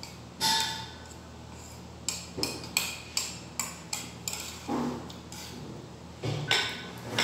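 Metal cutlery clinking and scraping against a plate while food is scooped up: a string of sharp clinks and short scrapes, a brief lull, then two more clinks near the end.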